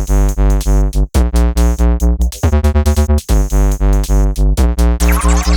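Electronic background music with a synthesizer and a steady drum-machine beat, about four pulses a second.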